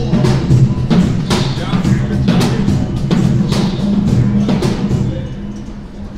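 Music with drum hits and sustained low bass notes, fading down near the end.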